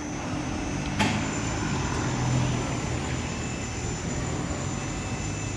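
Steady street traffic with a vehicle's engine hum swelling about two seconds in, and one sharp knock about a second in.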